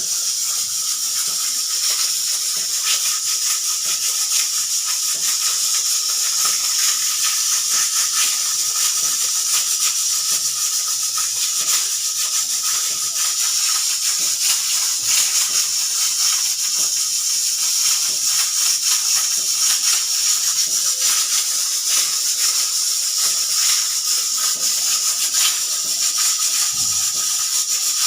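Pressure cooker venting steam in a continuous hiss, with a rapid fine crackling rattle and a faint steady tone underneath, rather than giving a proper whistle: the cooker's whistle is not working properly.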